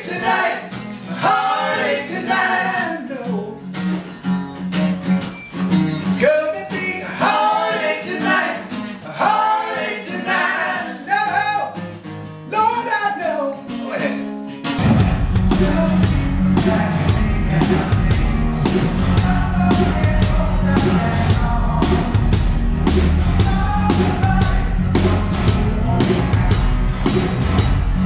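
Rock band music with singing: a voice over a sustained low note, then about halfway through the drums, bass and guitars come in together, louder and with a steady beat.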